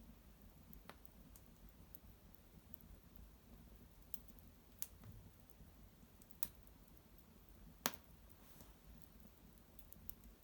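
Small fire of dried maple brushwood crackling: faint, scattered sharp pops and snaps, a few seconds apart, the loudest about eight seconds in, over a low steady hum.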